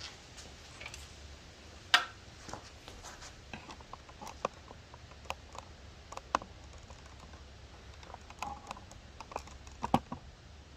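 Scattered light clicks and taps, with a sharper knock about two seconds in and another near the end, over a low steady hum.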